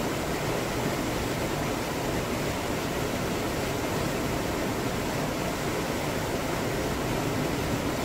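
Small waterfall pouring into a rock pool: a steady, even rushing of falling water.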